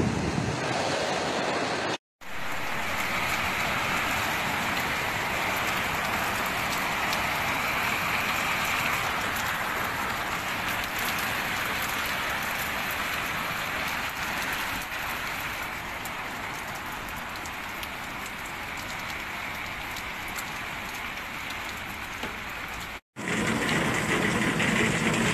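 Heavy rain pouring down onto the ground and surrounding surfaces, a steady dense hiss. It cuts out for a split second twice, about two seconds in and near the end.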